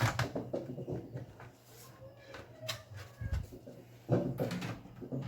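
Clicks, knocks and short plastic rattles of a laptop being handled and taken apart on a workbench, loudest near the start and again about four seconds in, over a steady low hum.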